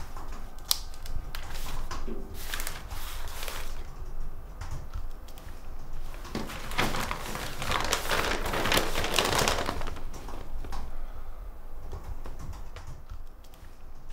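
Newspaper pages rustling and crinkling as they are handled, with a long rustle in the middle and scattered light clicks and knocks around it.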